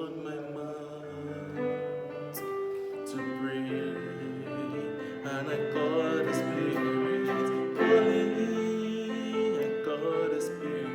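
Music: a slow gospel song, a voice singing long notes with vibrato over sustained held chords.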